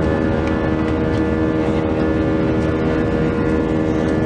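Airbus A320's IAE V2500 turbofan engines running, heard from inside the passenger cabin as a steady rush with several steady humming tones over it.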